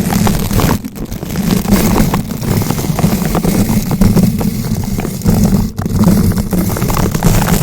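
Bristle brush rotated and rubbed directly against a bare microphone: continuous close scratching and crackling over a heavy low rumble from contact with the mic.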